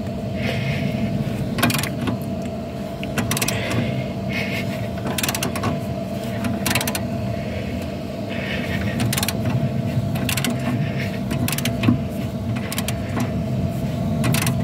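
Hand ratchet and socket on a rusted brake caliper bolt, clicking in short irregular runs as the handle is worked back and forth, over a steady low hum.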